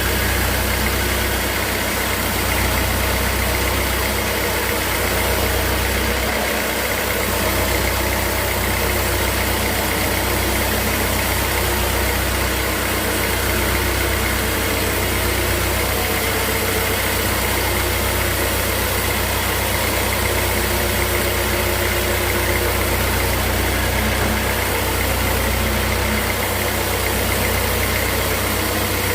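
Sawmill machinery running steadily: a constant engine-like drone with a heavy low hum and an even hiss, with no break or change.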